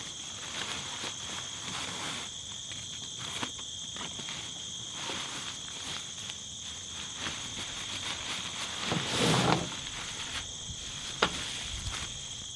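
Nylon tarp and paracord rustling, with small clicks, as a backpack is wrapped and tied, over a steady high insect chorus. A louder rustle comes about nine seconds in and a sharp click a couple of seconds later.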